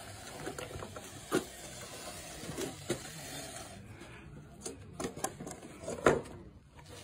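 Irregular scraping and rattling of hand-plastering wet mortar beneath a wheeled wooden profile form, with scattered clicks and two sharp knocks, the louder near the end.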